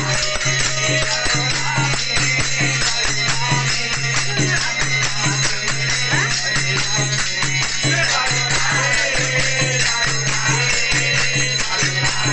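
Harinam sankirtan: a group of men singing a Hindu devotional chant together over a harmonium, with kartal hand cymbals struck in a steady rhythm.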